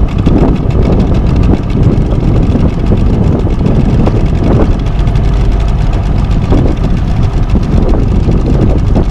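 Boat motor running at trolling speed, with heavy wind buffeting the microphone.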